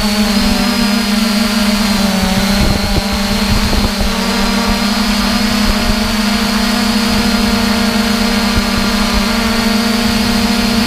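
The electric motors and propellers of a 3DR Iris+ quadcopter drone, heard from its onboard camera, whining steadily in flight with small shifts in pitch.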